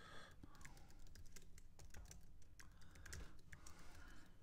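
Faint typing on a computer keyboard: a quick, irregular run of light key clicks.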